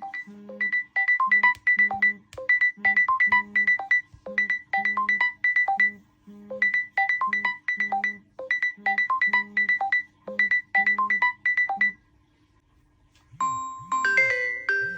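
Samsung Galaxy smartphone ringtone: a short bright melody of quick notes repeating over and over, which stops about twelve seconds in. After a brief pause a different chiming ringtone starts near the end.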